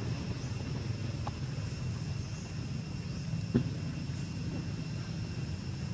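A steady low rumble with faint steady high-pitched tones above it, and one sharp click about three and a half seconds in.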